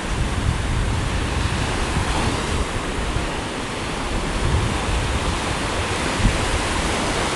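Ocean surf breaking and washing on a sandy beach, a steady wash of noise, with wind buffeting the microphone in low, gusty rumbles.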